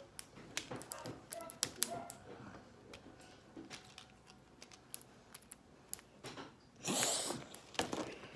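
Small plastic snap cap of an M&M's candy tube clicking and ticking as fingers pry and twist at it, many sharp irregular clicks, thickest in the first couple of seconds, with a brief scraping rustle about seven seconds in.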